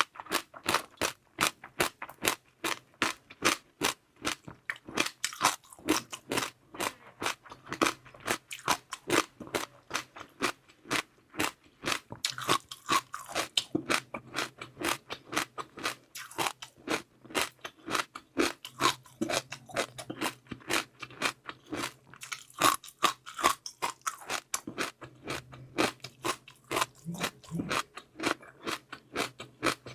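Close-miked crunching and chewing of crunchy seaweed pearls and jelly, with rapid sharp crackles several times a second.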